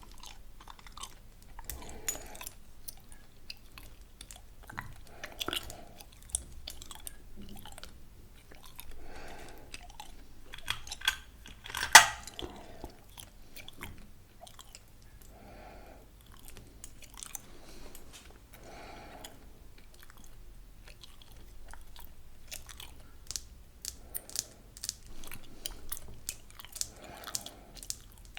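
Gum chewed close to the microphone: wet smacking and clicking mouth sounds in a slow, repeating rhythm, with one much louder sharp snap about twelve seconds in.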